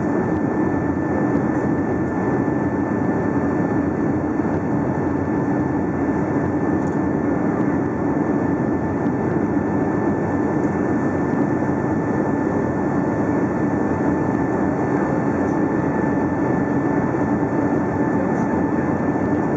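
Steady roar of a Boeing 757-200's engines and rushing air heard inside the passenger cabin on approach with flaps extended, with a thin steady whine over it.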